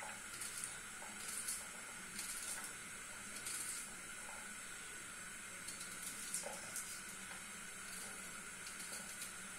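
Small kitchen knife slicing a red onion held in the hand: short, crisp cutting scrapes at irregular intervals, over a steady faint hiss.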